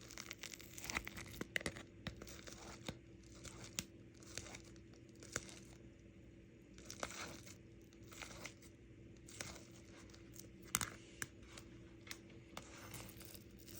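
Faint crinkling, tearing and clicking as a can of Spam is opened and its contents handled, in scattered short bursts over a low steady hum.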